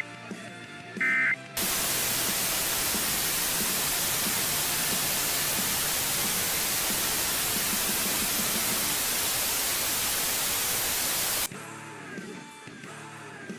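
The last of three EAS end-of-message data bursts (warbling two-tone digital squawks) sounds about a second in. It is followed by a loud, even wash of white-noise static for about ten seconds, which cuts off suddenly, and quieter rock music returns near the end.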